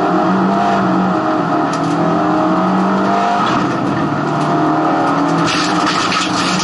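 Race car engine running hard at racing speed, heard from inside the stripped cabin, its pitch rising and falling as the revs change. A hissing noise grows louder near the end.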